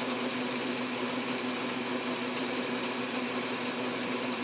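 South Bend 9-inch lathe running steadily, turning a small center drill that is being fed into an aluminum pulley: an even hum with one constant low tone. The operator reckons the spindle is probably turning too slowly for the little center drill.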